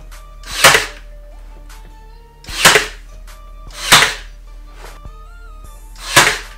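Four loud, sharp fastening shots a second or two apart, such as a staple gun or hammer tacking a banner up against a wooden wall, over background music with held guitar-like notes.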